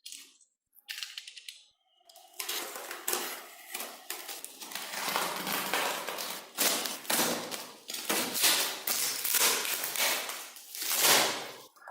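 Small metal and plastic parts of a diecast model car clicking, clattering and scraping as it is handled, in a run of short sudden noises.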